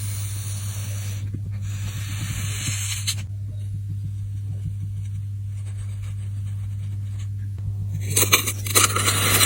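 Sand being scraped and cut, with crisp rasping, crunching strokes that grow dense and loud near the end, over a steady low hum.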